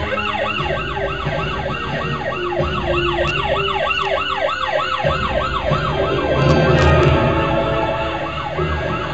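Emergency vehicle's electronic siren sounding a fast yelp, rising and falling about three times a second. Engine and road rumble swell about two-thirds of the way through as the vehicle passes.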